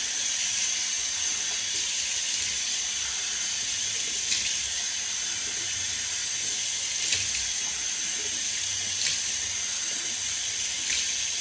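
Bathroom tap running steadily into a sink while a face is washed, with a few brief ticks over the water.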